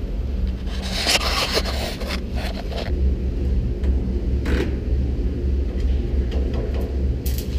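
Steady low rumble of industrial plant machinery, with some rustling and scraping. Near the end a dense crackling hiss starts: a stick welding arc being struck and run.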